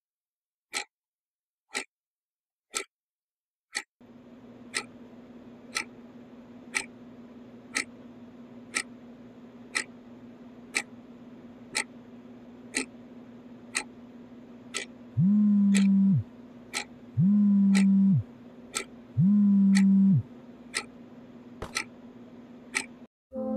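A clock ticking once a second, joined by a steady low hum from about four seconds in. Later a smartphone vibrates on a desk in three one-second buzzes, and near the end a hand slaps down on the phone with a small knock.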